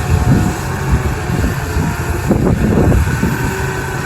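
New Holland T7.260 tractor engine running steadily under load while pulling a plough through wet ground, with some rattling and knocking about halfway through.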